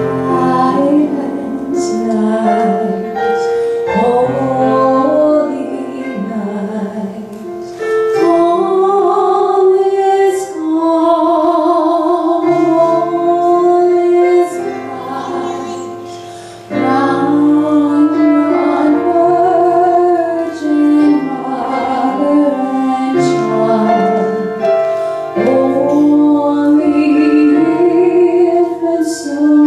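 A woman singing solo into a handheld microphone, holding long notes with vibrato over an instrumental accompaniment, with a short pause just past halfway.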